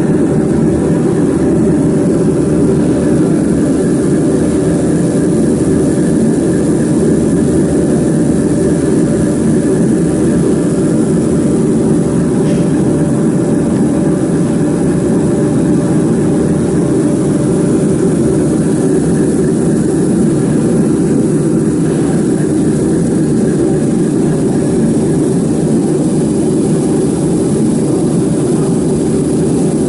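Steady mechanical hum from a laser marking machine at work, even in pitch and level throughout.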